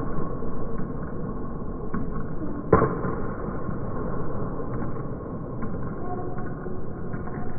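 Table tennis topspin drive rally: sharp clicks of the ball off rackets and table at uneven intervals, the loudest a little under three seconds in, over steady background noise of a large sports hall.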